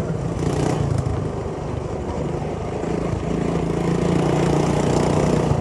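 Megamoto 212 minibike's single-cylinder four-stroke engine running under throttle while riding a rough dirt trail. Its note climbs a little and gets louder past the middle, over a steady rush of wind and trail noise.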